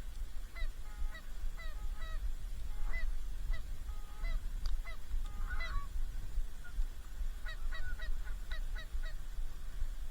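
Geese honking: many short, clipped honks in loose clusters, several overlapping, over a steady low rumble of strong wind on the microphone.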